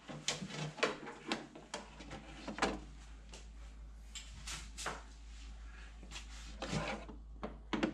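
Metal wire racks being slid into the rails of a PowerAirFryer Pro oven, a string of light clicks, clinks and rattles over a faint low hum.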